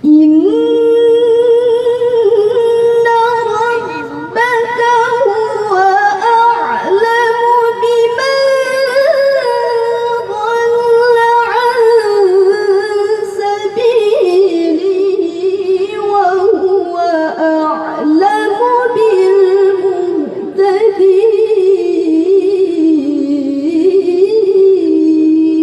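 A young girl reciting the Quran in the melodic tilawah style in a high voice, holding long ornamented notes that waver and turn through melismatic runs. Each phrase is long, with only short breaths between them.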